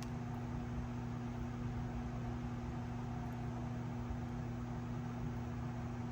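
Steady low electrical hum over an even hiss, from running workbench equipment.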